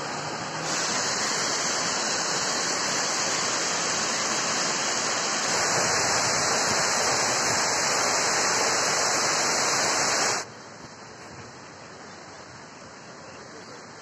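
Water rushing over a low concrete weir and through shallow rapids: a steady hiss that steps louder twice, then drops suddenly to a much fainter steady hiss about ten seconds in.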